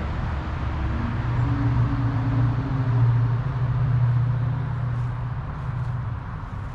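Road traffic from a nearby road: a steady low rumble that swells to its loudest around three to four seconds in, as a vehicle passes, then eases off.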